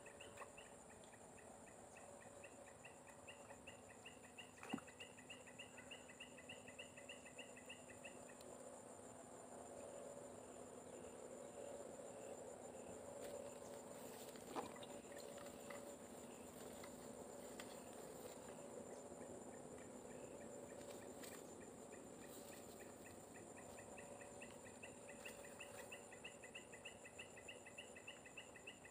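Faint insect chorus: a steady high-pitched buzz throughout, with a fast pulsing chirp that stops about eight seconds in and comes back near the end. Two short sharp clicks are heard, at about five seconds and at about fifteen seconds.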